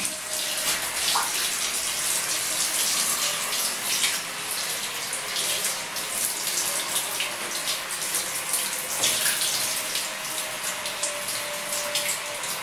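Hand-held shower spray running steadily, the water splashing over a wet kitten and onto the tiled shower floor as she is rinsed.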